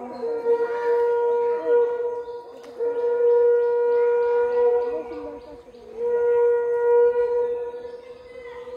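Background music: a wind instrument holding one long steady note, broken off briefly twice, with short sliding notes around it.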